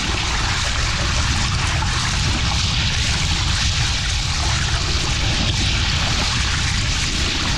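Steady wash of shallow surf with water splashing around a wader's legs and a foil board, over a constant low wind rumble on the microphone.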